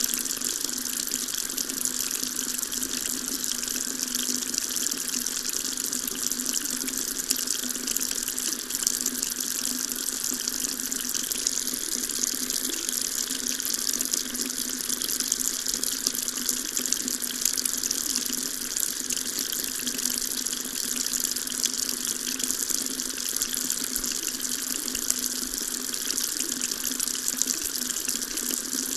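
Water tap running steadily into a sink: an even splashing stream with no change.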